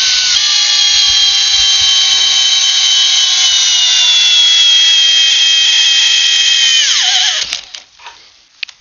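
Flex 24V hammer drill in low gear and drill mode, driving a long screw into a wooden post. Its motor whine slowly falls in pitch as the load builds, then drops sharply about seven seconds in as the drill stalls at its maximum torque. A few faint clicks follow.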